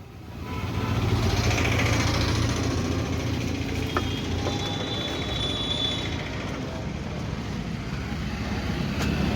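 A motor vehicle engine running steadily with road noise; it swells up in the first second and then holds at an even level.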